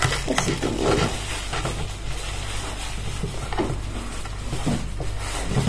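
Kitchen knife cutting an onion on a wooden chopping board: scattered light taps and scraping over a steady low hum.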